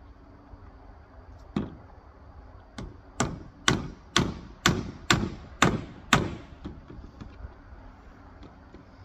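Hammer blows fastening a corrugated PVC roofing sheet to a wooden roof frame: two separate strikes, then a steady run of seven sharp blows about two a second, trailing off into a few lighter taps.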